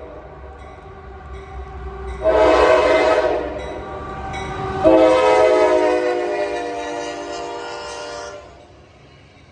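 Air horn of a CSX GE AC44CW diesel locomotive leading a coal train: a short blast about two seconds in, then a long blast from about five seconds in that fades out near the end. This is the close of the long-long-short-long grade-crossing signal. Under the horn, the loaded train rumbles as it rolls past.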